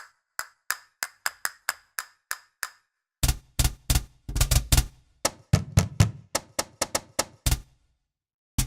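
Sampled hand percussion from a virtual-instrument library played as single hits: a run of light, high wooden clicks with a faint ring, then from about three seconds in louder strikes with a deep thump under them, in an uneven rhythm.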